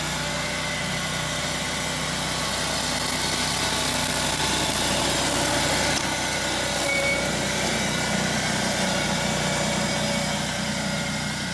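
An engine running steadily at an even speed, a constant hum with no pauses.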